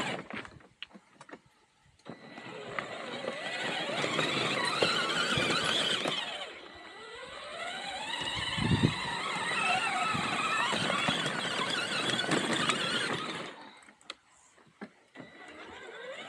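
Electric motors and gearboxes of a 24V kids' ride-on truck whining under load as it drives over rough dirt. The whine drops away about six seconds in and then rises again, with a low knock a couple of seconds later.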